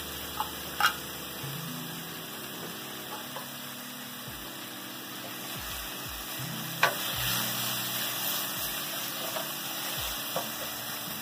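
Onion, celery, garlic and tuna sizzling in oil in a stainless-steel sauté pan, with a wooden spoon stirring and breaking up the tuna. A few sharp knocks of the spoon against the pan come near the start and about seven seconds in.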